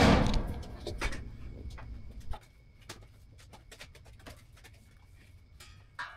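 Handling noise of a camera being set in place: a loud knock and rustle at the start with rumble that fades out after about two seconds. Then faint scattered clicks and taps of steel parts being handled on a steel welding table.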